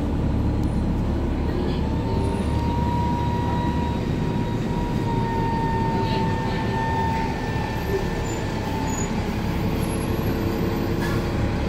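Cabin noise aboard a 2007 New Flyer D60LFR articulated diesel bus, its Cummins ISM engine running. A steady whine sits over a deep rumble and fades out about nine seconds in.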